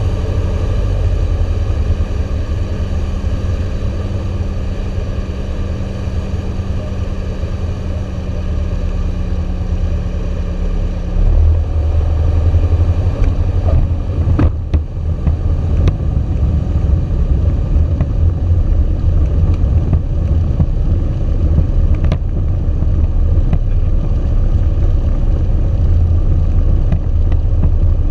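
Cockpit noise of a Socata TB9 Tampico light aircraft landing: its four-cylinder piston engine at low power with airflow over the airframe. About eleven seconds in a steady hum stops and a louder low rumble takes over as the wheels roll on the runway, with a few sharp clicks and knocks.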